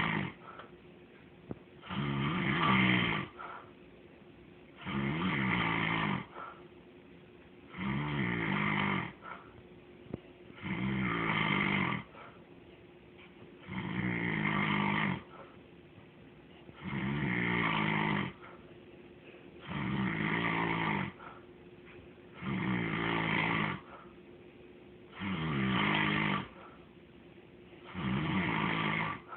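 Snoring: a long run of regular snores, each about a second long and coming about every three seconds.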